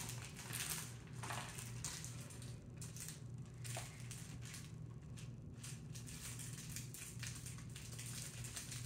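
Cardboard box and paper packaging of a Paqui One Chip Challenge being handled and unwrapped, rustling and crinkling in irregular bursts, over a low steady hum.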